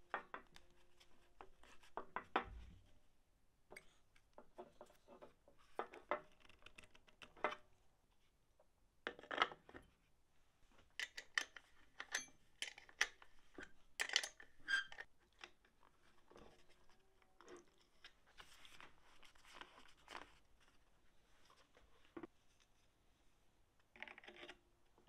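Scattered clicks, knocks and clinks of metal and plastic parts handled on a steel bench: a brake master cylinder with a plastic fluid reservoir being fitted to a vacuum brake booster and its nuts done up with a spanner. The clicks come in bunches, busiest in the middle.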